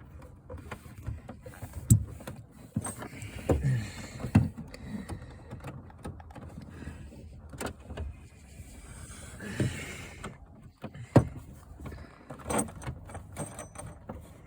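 Hand-tool and handling noise on a truck's roof fitting: a scatter of clicks, knocks and scrapes, with sharper knocks about two seconds in, near four and a half seconds and about eleven seconds in.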